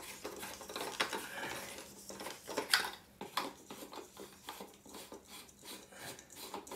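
An LED light bulb being handled and screwed into a ceiling lamp socket: a run of small, irregular clicks and scrapes.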